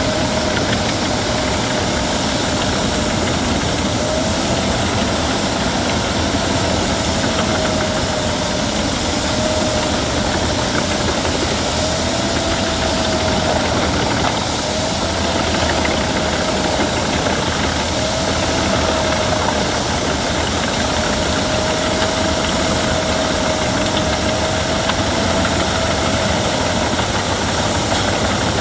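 Albach Diamant 2000 wood chipper running steadily at working speed, a dense machine noise with a faint whine that wavers slightly in pitch.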